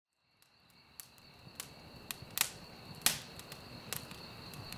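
Background ambience fading in from silence: scattered sharp ticks and clicks over a steady high-pitched whine.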